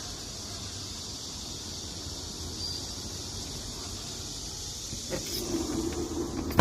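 Outdoor noise coming through an open window: a steady low traffic-like rumble under a high steady hiss. Right at the end a sliding window is pushed shut with a sharp knock, and the noise drops.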